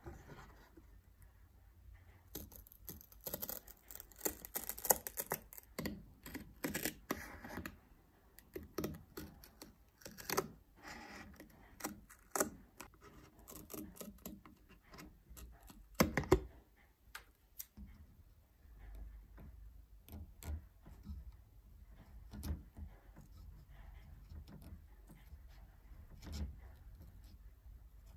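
Scissors snipping through masking tape and wood veneer, with crackly crinkling and tearing of the tape and many small sharp clicks. There is a single loud knock about halfway through. After it come quieter, scattered light clicks and scrapes.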